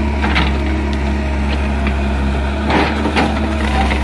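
Hydraulic excavator's diesel engine running steadily under load while its bucket tears a bamboo clump's root ball out of the ground. Bamboo roots and stems crack and snap just after the start and again for about half a second around three seconds in.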